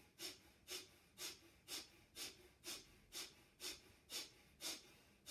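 A person doing a yoga breathing exercise, making short, forceful exhalations through the nose in an even rhythm of about two a second.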